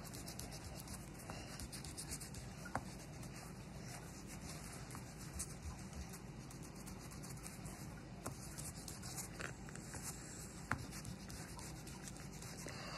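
Rubber eraser rubbing back and forth on paper, erasing leftover pencil lines, with a few light clicks of hand or paper against the table.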